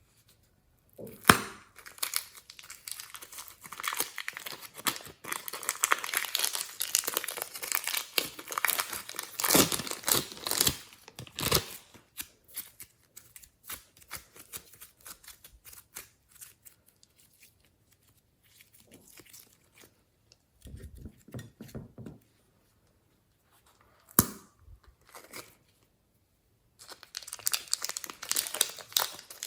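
Glossy slime being squeezed, stretched and pressed by hand, giving dense sticky crackling and popping that thins out through the middle and picks up again near the end, with one sharp snap a little past two-thirds of the way through.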